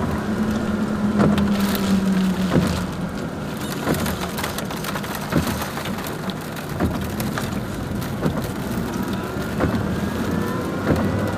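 Raindrops tapping on a car's windshield and body, heard from inside the moving car over a steady engine hum and tyre noise on the wet road.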